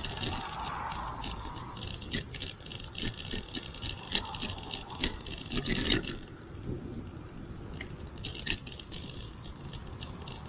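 Bicycle riding over pavement: frequent small rattles and clicks from the bike over bumps and cracks, over a steady rumble of tyres and wind, with a denser run of louder knocks about six seconds in as it crosses rough patched asphalt. Cars pass on the road alongside.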